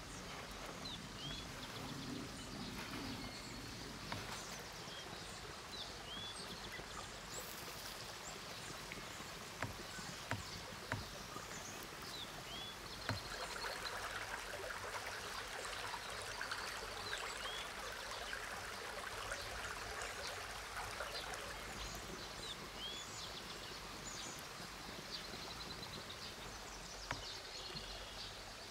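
Shallow forest stream flowing steadily over stones, a little louder in the middle, with short bird chirps scattered throughout and a few faint knocks.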